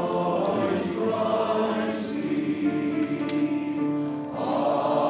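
Male voice choir singing, holding long chords.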